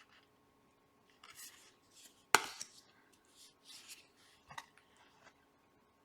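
Tarot cards being handled on a table: a few short rustling slides, with one sharp tap about two seconds in, the loudest sound, and a smaller tap a couple of seconds later.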